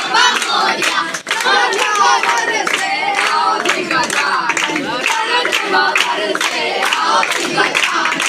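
A crowd of children singing together and clapping in a steady rhythm, about three claps a second.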